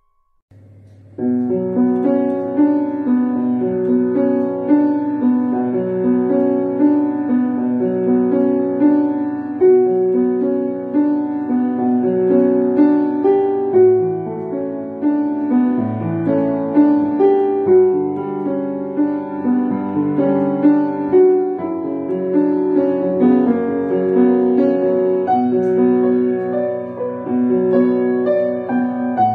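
Background piano music: after a short silence a new piece starts about a second in, with a gentle, flowing melody over repeated chords.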